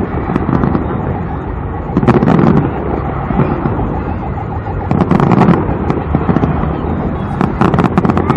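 Aerial fireworks in a display, going off in three crackling volleys about two and a half seconds apart, over a steady background din.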